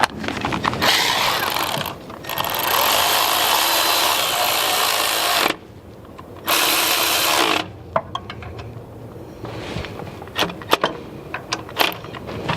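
A power tool with a socket runs 10 mm bolts on a power steering pump. It runs three times: briefly, then for about three seconds, then for about a second. After that come scattered clicks and knocks of metal being handled.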